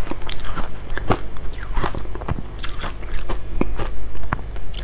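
Crunching and chewing of frozen matcha ice close to the microphone, a quick run of irregular sharp cracks, with a metal spoon scraping a scoop out of the icy block.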